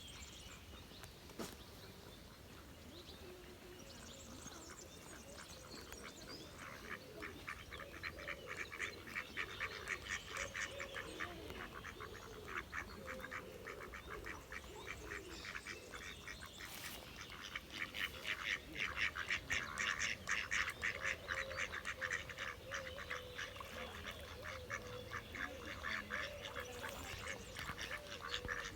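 Ducks calling on a lake: a rapid, dense run of quacks starts about six seconds in and keeps going, loudest about two-thirds of the way through.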